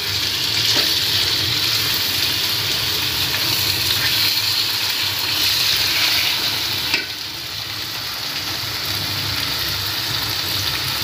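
Marinated chicken pieces frying in oil in a kadai on low flame: a steady sizzle, with the red silicone spatula scraping and turning the pieces now and then, as the chicken browns and releases its oil. A sharp click about seven seconds in, after which the sizzle is a little quieter.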